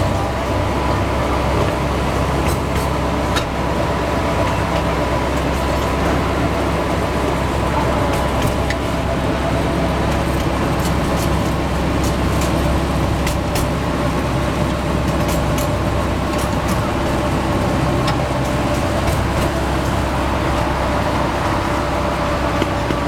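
Open ride-on train carrying passengers in motion: a steady engine drone and rolling rumble with a held whine, and scattered light rattles and ticks.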